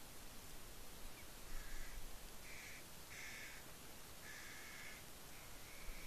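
A bird gives about five short calls, starting about one and a half seconds in, the longest one a little after the middle, over a steady background hiss of rain.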